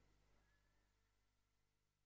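Near silence, fading away further.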